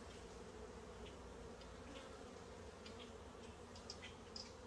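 Honey bees from a populous colony humming around an open hive: a faint, steady drone, with a few light ticks scattered through the second half.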